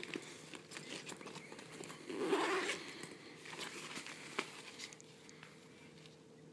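Soft-sided fabric pet carrier being handled: its zipper worked and the fabric rustling, with scattered small clicks and a louder rustle about two seconds in.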